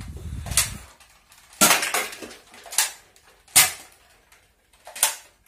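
Foam darts from a toy blaster hitting drinks cans and plastic cups, about five sharp clatters spread over the few seconds, one of them knocking a can off its stack.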